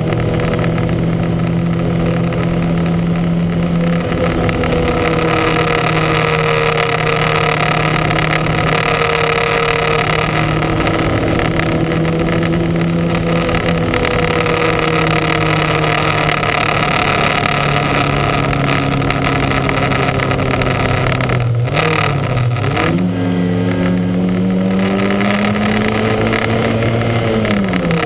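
Lancia Montecarlo's four-cylinder engine running hard at steady revs, with the revs dipping and climbing again about three-quarters through and once more near the end.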